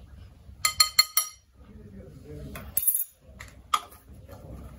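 Metal spoon clinking against a glass mixing bowl: a quick run of ringing clinks about half a second in, then two more single clinks later on.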